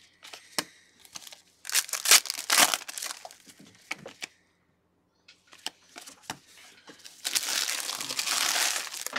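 Foil trading-card pack wrappers crinkling and tearing as packs of 2017 Prizm basketball cards are opened and the cards handled. The crinkling comes in irregular bursts with a short quiet gap in the middle, and the longest, loudest stretch comes near the end.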